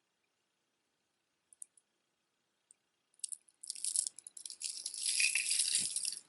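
A few faint clicks, then from about three seconds in a long strand of dyed stone beads rattling and clattering as it is lifted and handled.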